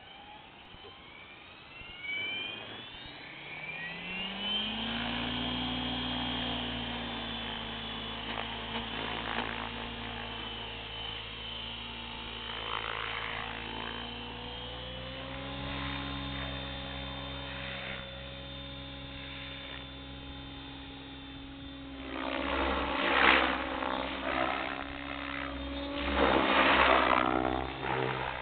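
Electric radio-controlled helicopter (Thunder Tiger Raptor E700) spooling up. The motor whine and rotor hum rise in pitch over the first few seconds, then hold steady, stepping up once about halfway. Two loud surging bursts come near the end.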